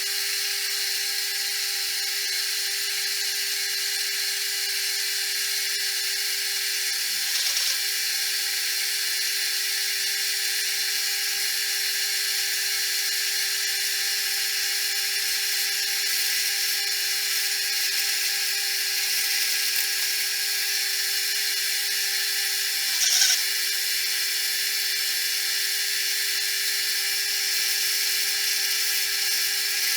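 Machine spindle running steadily with a 4 mm drill bit: a steady hum and a high hiss, with two brief louder moments, about seven and twenty-three seconds in.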